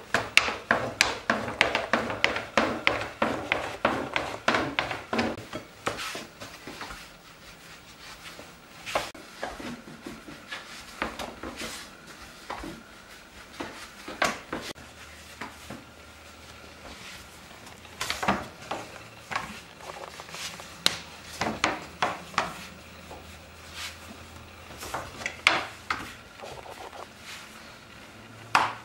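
A thin wooden rolling pin rolls dough out on a wooden board, with rapid wood-on-wood knocking and rubbing for about the first six seconds. After that come scattered knocks and rubbing as the dough is worked on the board.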